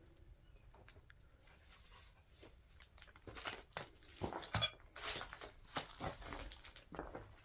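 Quiet for about three seconds, then a run of rustles, crunches and sharp clicks of movement over a debris-strewn floor.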